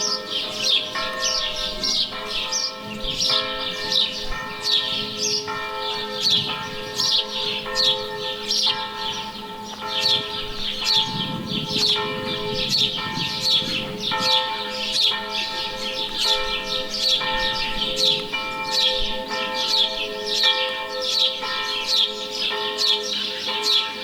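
Church bells ringing a continuous peal, new strikes coming about once a second and overlapping as they ring on, while small birds keep up a rapid stream of short, high, falling chirps.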